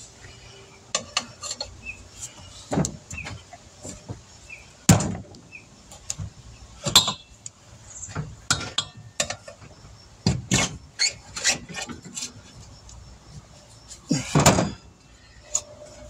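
A metal pry tool clinking and scraping against a motorcycle wheel rim as a new tire's bead is levered on by hand, with short rubber squeaks and irregular knocks, the loudest about five, seven, ten and fourteen seconds in.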